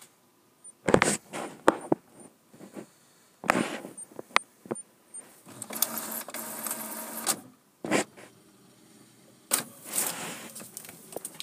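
HP Officejet all-in-one inkjet printer running a copy job: a series of short mechanical clunks and whirs from the paper feed and print carriage, with a steadier whir lasting about two seconds around the middle.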